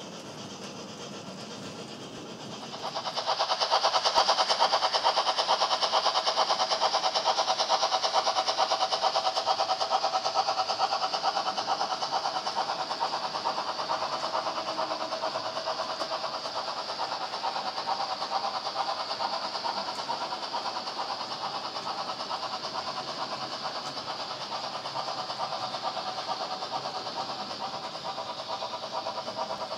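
Model train running on the layout: a steady mechanical whirring rattle that starts abruptly about three seconds in and slowly fades.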